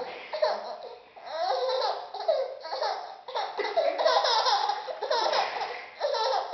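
A baby laughing in repeated bouts with short breaks between them, set off by her mother's swinging hair.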